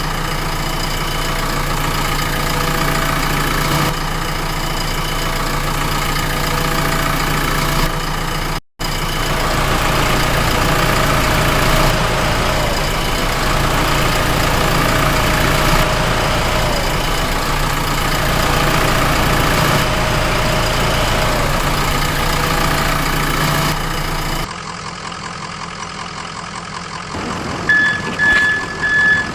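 Heavy vehicle engine idling steadily, with a brief dropout about a third of the way through. Near the end it drops in level and a vehicle's reversing beeps start.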